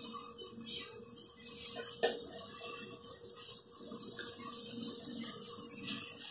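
Hot oil sizzling in a frying pan as breaded snacks are laid into it one at a time, with a sharp click about two seconds in.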